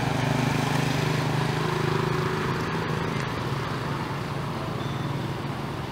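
A motor engine running with a steady low hum over a background rush, easing off somewhat after about the halfway point.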